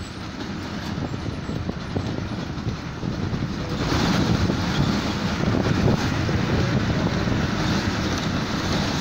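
A bus driving along, its engine running with road and wind noise at the open window; the noise grows louder about four seconds in.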